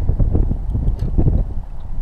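Wind buffeting the microphone: a loud, uneven low rumble with a few faint clicks.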